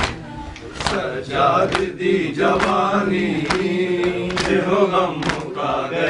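A group of men chanting a noha together, with chest-beating (matam): a sharp hand strike on the chest a little under once a second, in time with the chant.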